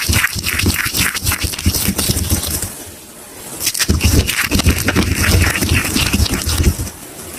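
Soap being crushed and broken apart: a dense run of crackling crunches, a brief lull about three seconds in, then heavier crunching with a deeper thudding body that eases just before the end.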